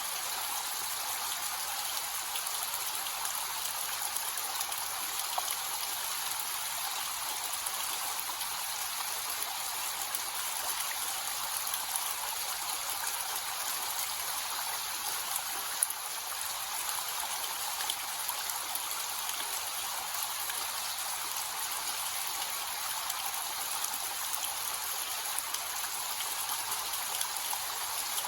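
Small waterfall with a low flow of water, splashing and trickling steadily in an even, hissy rush with little deep roar. One brief tick about halfway through.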